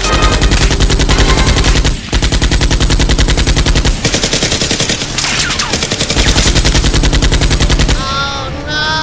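Rapid automatic-gunfire sound effects in long, fast bursts, laid over toy blasters rather than coming from them. The firing breaks off briefly about two and six seconds in and stops near the end, where a short wavering cry takes over.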